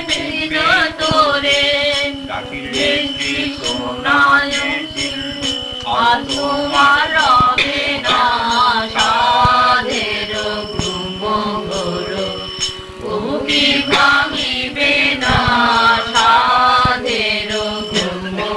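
Bengali devotional kirtan: singing, with steady held notes sounding beneath the voice.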